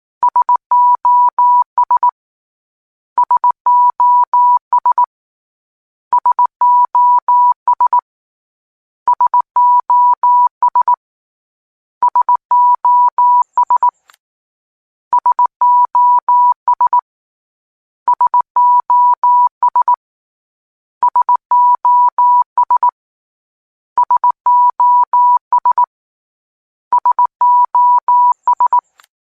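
Morse code: a single steady beep tone keyed on and off in short dots and longer dashes, the same group of signals repeating about every three seconds.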